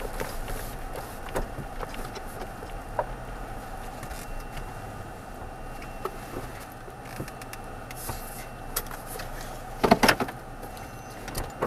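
Pickup truck crawling slowly over a dirt track, heard from inside the cab: steady low engine and road noise with scattered knocks and clicks. About ten seconds in, a cluster of loud knocks and scrapes as overhanging pine branches brush the truck.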